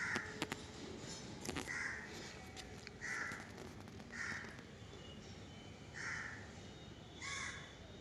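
A crow cawing repeatedly, about six short, harsh caws spaced a second or two apart.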